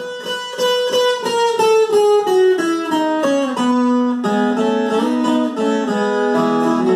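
Viola caipira, the ten-string Brazilian folk guitar, playing an instrumental interlude. A quick plucked melody steps downward over the first three to four seconds, then turns to notes sounding in pairs.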